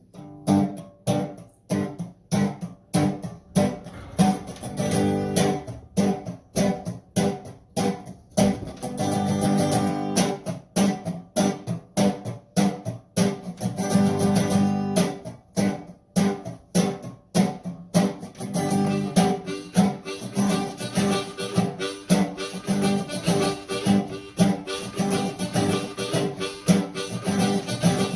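Blues played on a resonator guitar with a Hohner harmonica, a foot tambourine keeping a steady beat. The guitar is picked in an even rhythm, with held harmonica notes in stretches.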